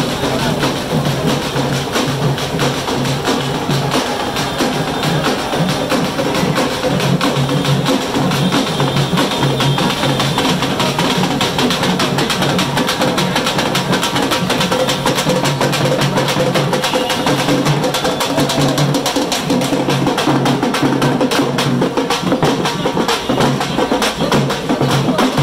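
Loud festival procession music driven by continuous, rapid drumming, with no break.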